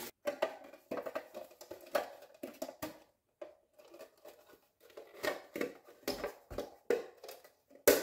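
Foam packing peanuts rustling and squeaking as hands dig through them, with irregular clicks and small knocks of a plastic bird bath being handled and fitted together. Quieter for a moment in the middle.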